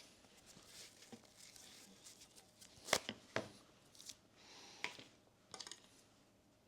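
Faint handling noises on a small workbench: light rustling with a few sharp clicks or taps, two of them close together about three seconds in and another a little before five seconds.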